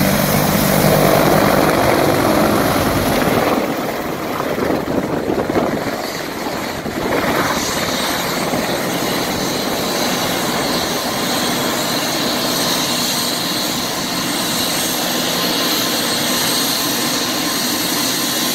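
AH-64D Apache attack helicopter lifting off and flying away. For the first three or four seconds it has a strong, deep rotor beat, which then gives way to a steadier, thinner rotor and turbine noise as it climbs off.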